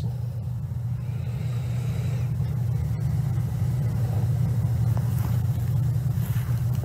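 A steady low hum of background noise with no speech, even in level throughout.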